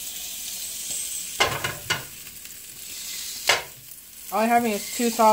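Sausages sizzling steadily in a frying pan, with a few sharp scrapes and clatters of a utensil turning them, about one and a half seconds in and again past three seconds.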